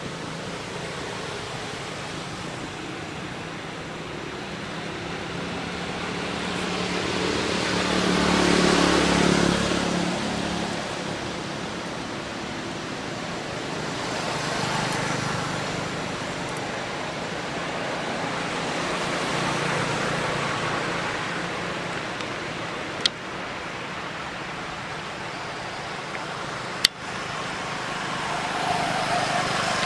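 Road vehicles passing, the noise swelling and fading: the loudest pass about nine seconds in, with smaller ones later and near the end. Two sharp clicks come in the last third.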